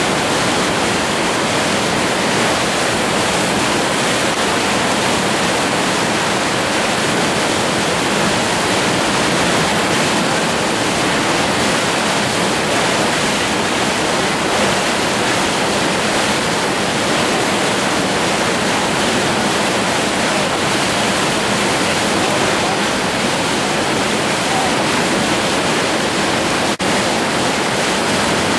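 Whitewater rapids rushing: a loud, unbroken noise of fast water, with one brief click near the end.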